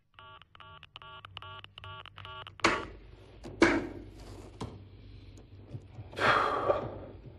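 Telephone line tone after a call is hung up: a run of short, identical beeps, about three a second, for a couple of seconds. Then come a few louder bursts of noise.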